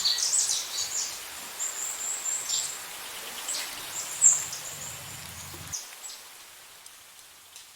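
Small birds chirping in short, high-pitched calls over a steady background hiss, the calls thinning out and growing fainter toward the end.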